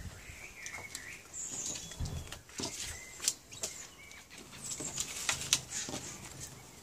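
Faint rustling and light clicks from cards handled in the hands, with a few brief soft chirps from an Amazon parrot.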